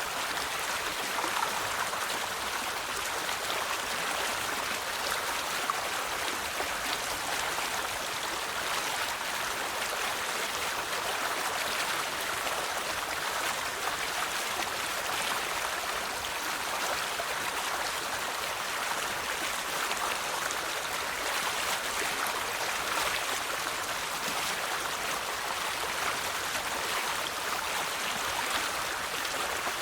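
River water flowing and babbling over stones, a steady rushing with fine splashing.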